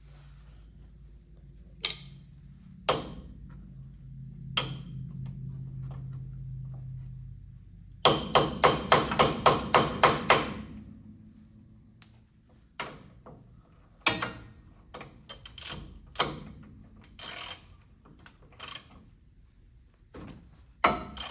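Hammer blows on the Camaro's front suspension parts: three single strikes, then a fast run of about a dozen blows, about five a second, followed by scattered lighter knocks.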